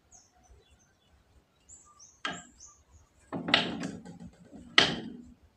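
Knife cutting a block of tempe against a wooden board, the blade knocking sharply on the wood three times about a second apart.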